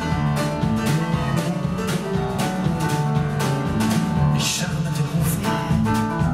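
Live band playing an instrumental passage: grand piano, drum kit keeping a steady beat, and electric bass, with a cymbal wash a little past four seconds in.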